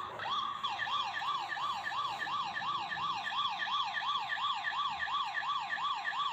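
Bruder toy light and sound module playing its electronic police yelp siren: a quick rising-and-falling wail repeated about three times a second.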